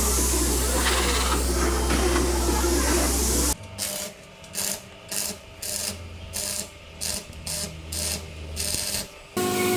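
A loud steady passage, likely background music, cuts off suddenly about three and a half seconds in. A run of short, irregular workshop hand-tool strokes follows, about one and a half to two a second. The loud steady sound returns just before the end.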